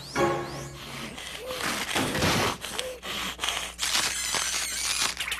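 Cartoon sound effects: a quick rising whoosh at the cut, then a string of short clicks and clatters with a few gasping vocal sounds from the cartoon cat, and thin wavering high tones near the end.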